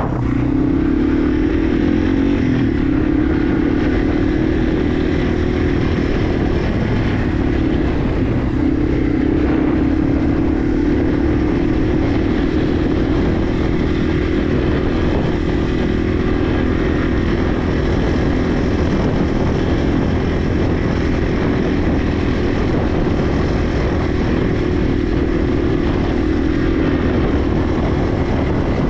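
Yamaha TW200's single-cylinder four-stroke engine running at a steady pace as the motorcycle is ridden along a dirt track.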